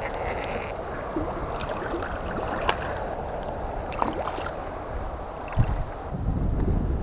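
Hooked catfish splashing and thrashing at the water's surface close to the bank, with scattered small splashes and a louder thump about five and a half seconds in. Wind rumbles on the microphone near the end.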